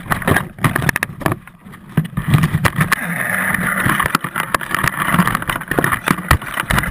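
Rattling knocks and rubbing on a GoPro camera housing mounted on a crashed RC plane as the plane shifts among tree branches. A steady rushing noise joins in about two and a half seconds in.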